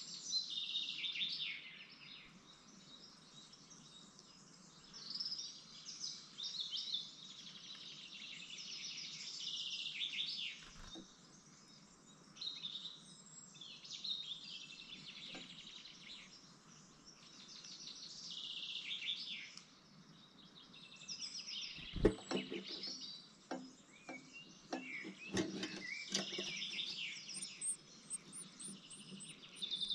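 High-pitched bird chirps in short bursts every few seconds. About two-thirds of the way through, a run of sharp knocks and scratches on the wooden nest box, the loudest sounds, as an adult blue tit arrives at the nest.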